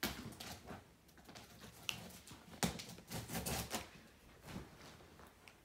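Cardboard box being cut open by hand: irregular scraping, clicks and rustling of a blade working through packing tape and cardboard.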